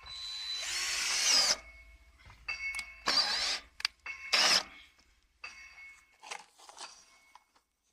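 Power drill/driver running in several short bursts with a whining motor. The first burst is the longest, over a second, and the later ones are shorter and fainter.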